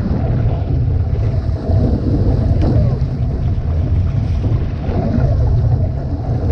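Heavy wind buffeting the microphone, over water rushing and splashing along the hull and float of an OC-1 outrigger canoe being paddled through wind-blown chop.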